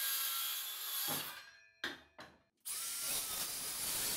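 Circular saw crosscutting a walnut board. The saw winds down about a second in, and after a click and a short break it starts again with a slightly rising whine and cuts on.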